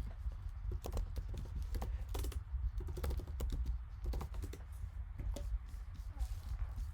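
Trading cards and their plastic sleeves and holders being handled on a table: a run of light, irregular clicks and taps over a steady low hum.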